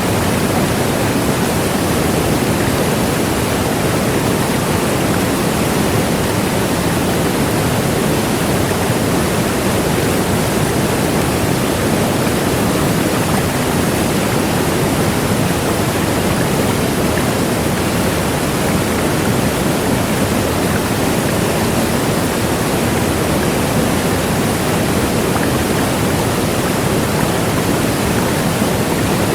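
Large waterfall, a steady dense rush of falling water, loudest in the lower range and unchanging throughout.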